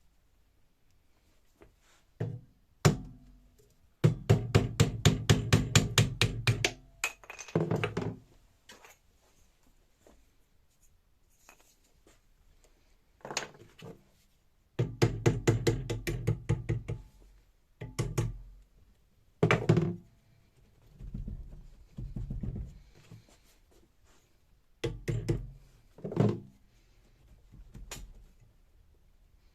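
Rapid knocking in two runs of about seven knocks a second, each lasting a few seconds, with single heavier knocks before, between and after.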